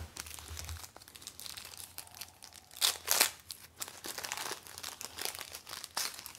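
A sealed 1991 Impel DC Cosmic Cards trading card pack being opened by hand: its wrapper crinkles and tears in irregular crackles, loudest about three seconds in.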